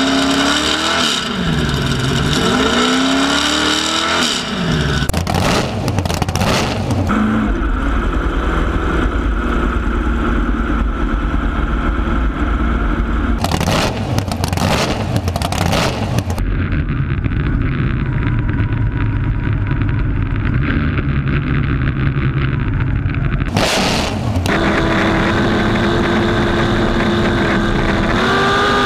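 V8 race-boat engines in several cut-together clips: one revved up and down a few times in the first four seconds, then engines running at steady speed, with a steady engine note rising slightly near the end.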